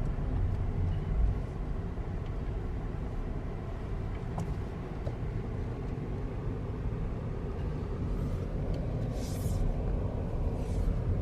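A car driving: steady low road and engine rumble.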